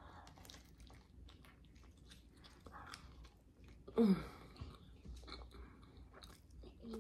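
Close-up mouth sounds of someone chewing a mouthful of thin-crust combination pizza, with small clicks throughout. About four seconds in comes a short hummed "mmm" that falls in pitch, the loudest moment.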